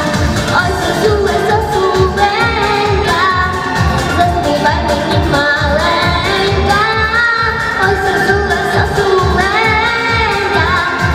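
A young girl singing a song into a microphone, her melody line with gliding notes, over a pop backing track with a steady beat.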